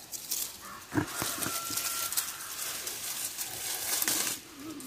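Rustling and crackling of tomato vines and leaves as ripe tomatoes are pulled off by hand, with a couple of dull thumps about a second in.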